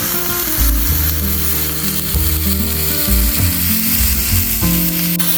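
Background music with a moving bass line over a steady sizzling hiss.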